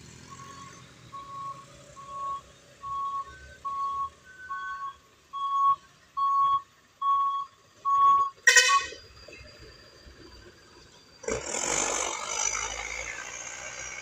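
Warning beeper on an approaching bus sounding an even series of single-tone beeps, about one and a half a second, growing louder as the bus nears. A short sharp blast comes about eight and a half seconds in, and a loud rushing noise follows in the last few seconds as the bus passes close.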